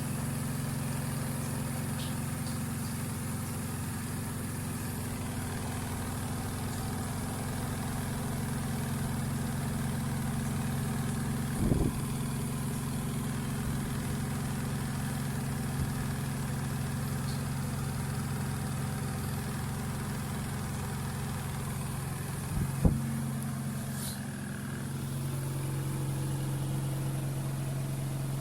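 Electric motor of a small home washing appliance, either a bucket-type washer or a compact spin dryer, running with a steady hum. There are two brief knocks, one about twelve seconds in and one about twenty-three seconds in, and the hum shifts slightly soon after the second.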